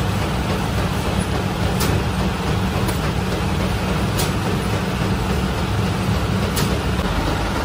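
Bakery machinery running, a steady low drone, with a few faint ticks as plastic bread bags are handled.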